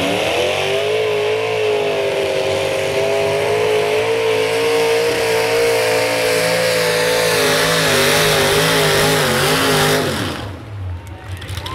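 Twin Hemi engines of a modified pulling tractor revving up at launch, then running at full throttle under the load of the sled with the pitch wavering slightly. The engines drop off sharply about ten seconds in as the pull ends.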